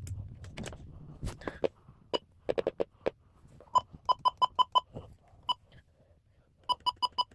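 Short electronic keypad beeps from weather radios being set to test mode, in quick runs of five or six, after several clicks and knocks of the radios being handled.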